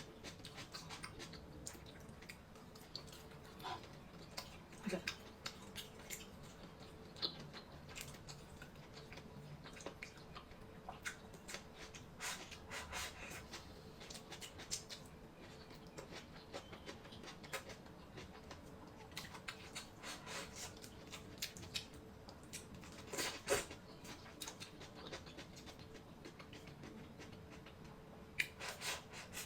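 Close-miked eating sounds: scattered light clicks and taps of utensils against dishes and food, with a few louder knocks near the end, over a faint steady hum.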